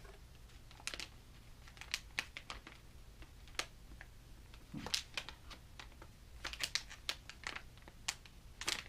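Plastic lure packaging crinkling and clicking as it is handled, in irregular short rustles and sharp clicks that grow busier in the second half.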